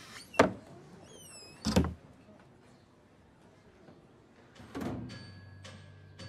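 A wooden cupboard hatch thuds shut, then a few quick descending chirps and a second thud follow. Near the end, music comes in with steady held tones.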